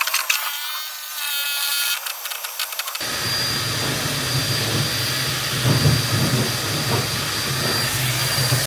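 A motor-driven machine running steadily after an abrupt cut about three seconds in, with a strong low drone and a thin steady high whine. Before the cut, a thinner sound with shifting tones.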